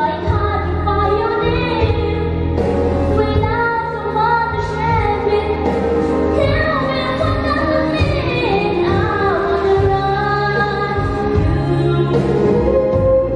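A girl singing solo into a handheld microphone over backing music, holding long notes, with a drawn-out falling slide in pitch about two-thirds of the way through.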